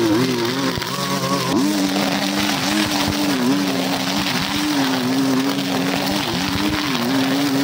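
Petrol string trimmer running at high speed while mowing grass. Its engine pitch drops a little after about a second and a half, then keeps dipping and recovering as the line cuts through the grass.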